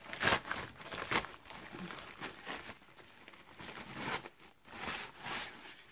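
White plastic wrapping rustling and crinkling in irregular bursts as it is pulled open and an item is worked out of it by hand.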